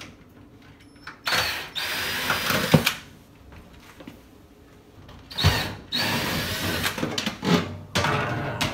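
Cordless drill with a nut-driver bit running in two bursts, the second longer, as it backs out the small screws holding the old dryer vent hose.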